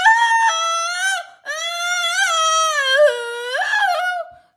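A very high-pitched voice singing or wailing wordless, wavering notes in two long phrases, with a short break about a second and a half in.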